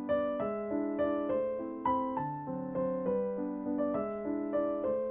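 Background piano music: a gentle melody of single struck notes at an even pace, about two or three notes a second.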